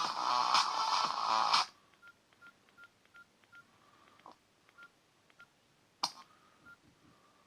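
Samsung C3350 mobile phone: a polyphonic ringtone plays and cuts off suddenly after about a second and a half, then the phone's short keypad beeps sound as keys are pressed, a quick run of about seven followed by a few single ones. About six seconds in, another ringtone blips briefly and stops.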